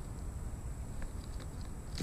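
Faint low background rumble with a few soft, short high ticks in the second half.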